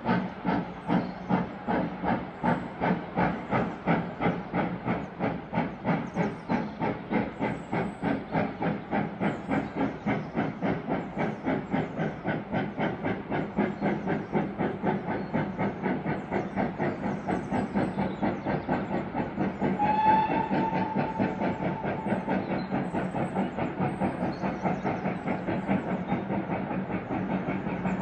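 Steam locomotive working hard: a steady run of exhaust chuffs that quicken as it gathers speed. It gives one short whistle blast about two-thirds of the way through.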